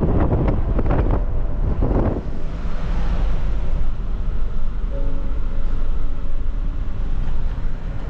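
Four-wheel-drive Jeep driving through deep snow: a steady low rumble of engine and tyres, with a run of crackling for about the first two seconds. A faint steady hum joins about five seconds in.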